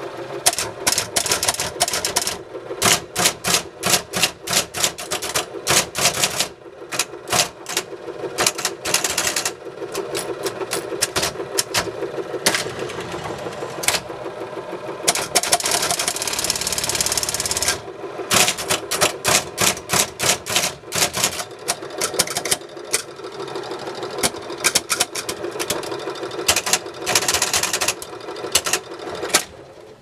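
Olivetti Lexikon 82 electric typewriter being typed on, its motor humming steadily under quick runs of key strikes. A little past the middle comes a few seconds of continuous rapid mechanical clatter.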